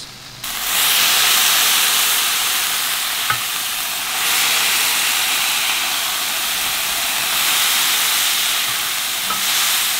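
Burger patties searing in a hot cast-iron skillet: a steady fat sizzle that starts suddenly about half a second in, with a couple of light ticks from the metal spatula.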